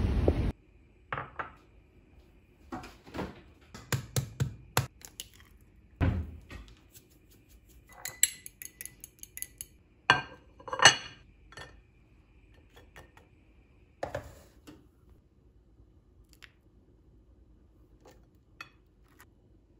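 Ceramic plate and utensils clinking and knocking on a marble countertop: a string of separate clicks and clunks, the loudest about eleven seconds in, when the plate is set down. Half a second of wind noise on the microphone cuts off at the start.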